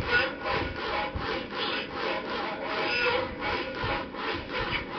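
Rapid, rhythmic rubbing and scratching, about four or five strokes a second: hands working over the animatronic lobster's cloth skin while feeling for its switch.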